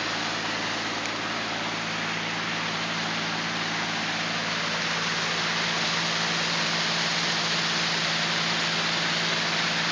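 Waterfall rushing: a steady hiss of falling water, growing slightly louder, with a steady low hum underneath.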